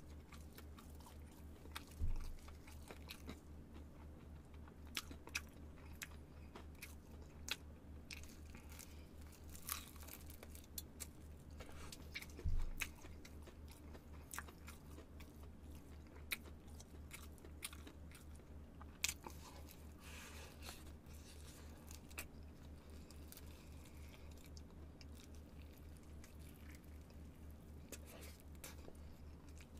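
Close-miked chewing of crispy fried chicken: scattered crunches and crackles of the fried crust with wet mouth sounds, over a low steady hum. Two louder knocks land about two seconds in and again near the middle.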